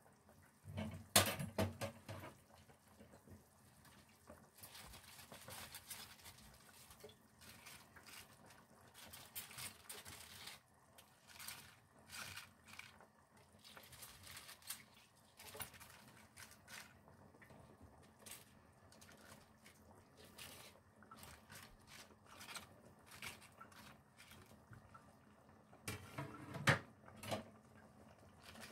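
Bok choy leaves being dropped into a stainless steel pot of simmering soup: scattered faint rustles and soft splashes, with small clinks of a plate and ladle against the pot. Sharper knocks come about a second in and again near the end.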